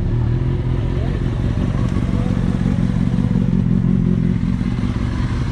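Motorcycle engine running at low revs as the bike rolls slowly, picking up a little about halfway through.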